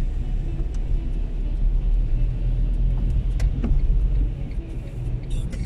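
Car driving on a rain-wet road, heard from inside the cabin: a steady low rumble of engine and tyres, with a few faint clicks and a short hiss near the end.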